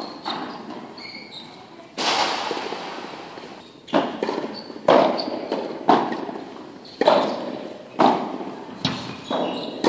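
Padel rally: a padel ball struck back and forth with solid padel rackets, a sharp pop about once a second from about two seconds in, each hit echoing in the large hall.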